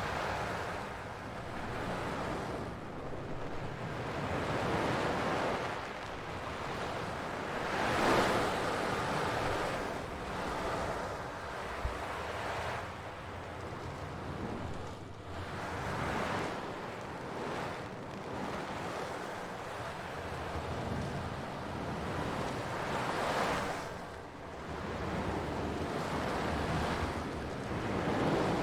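Continuous rushing noise, like surf, swelling and fading every few seconds, with a faint click about twelve seconds in.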